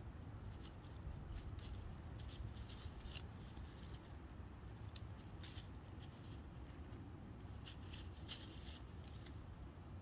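Faint, scattered crisp rustles and crackles of dry leaves and grass being disturbed, over a low steady rumble.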